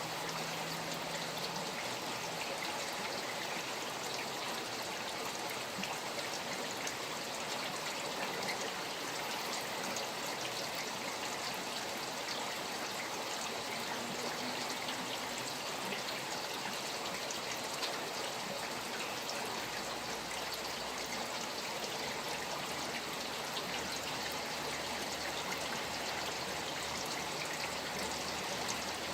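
Rain falling beside a flowing stream: a steady, even rush of running water with the fine patter of many raindrops.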